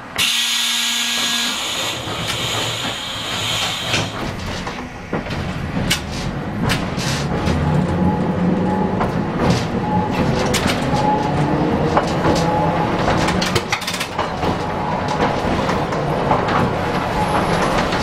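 Tram ride heard from inside the car: a hiss of air at the start, then the traction motors whining and rising in pitch as the tram gathers speed, with wheels clicking and knocking over the track.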